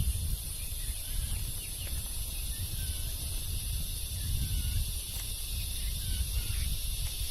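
Forest ambience: a steady high-pitched insect drone, with a few faint, short bird chirps and a fluctuating low rumble underneath.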